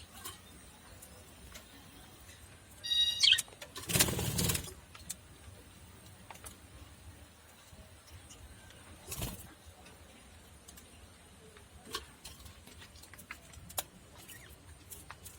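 Budgerigar giving a short, loud chirp about three seconds in. It is followed by two brief bursts of noise, one right after the chirp and one about nine seconds in, against faint scattered clicks.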